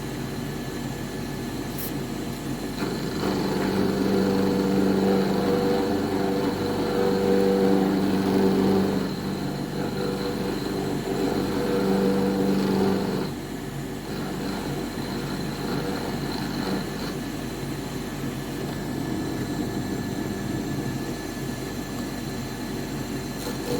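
CNC router running, a steady machine hum with several held tones. The tones grow louder in stretches from about 3 to 13 seconds in, as if the axes were moving, then settle back.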